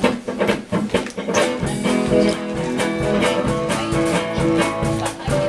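A band playing upbeat music with guitar and a steady beat for a dance number; held notes come in about a second and a half in.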